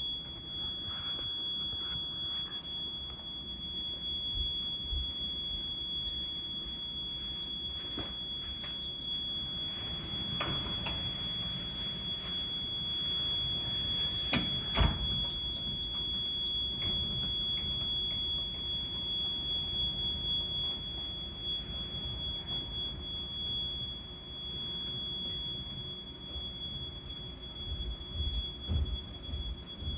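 A steady, high-pitched electronic tone held without a break, with a single knock about halfway through.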